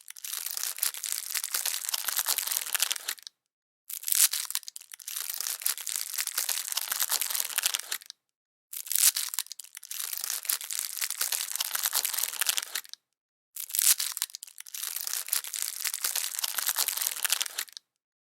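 Plastic candy wrapper being crinkled and opened, a dense crackle repeated in rounds of about four seconds with short silent gaps between them. Each round starts with a louder, sharper crackle.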